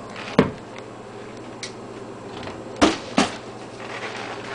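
Handling noises: three short knocks, one about half a second in and two close together near three seconds, with a few fainter clicks between.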